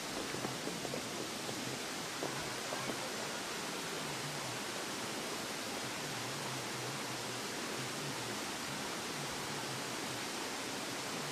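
Steady rushing of a waterfall and the rocky stream below it, an even hiss of falling water.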